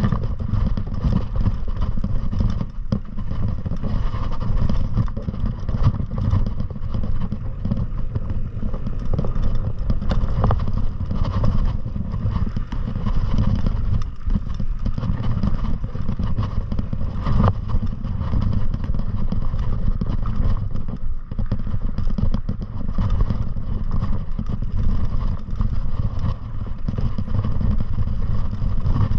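Steady wind rumble buffeting the microphone while moving fast downhill, with a constant hiss above it.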